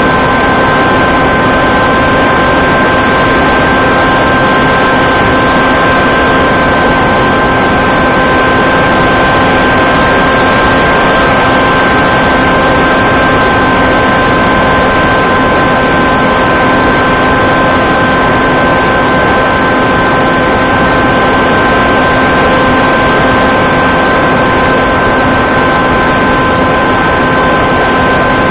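Aircraft motor running at a constant speed under an even rush of wind, heard from a camera on board: a steady, loud drone with a few unchanging tones.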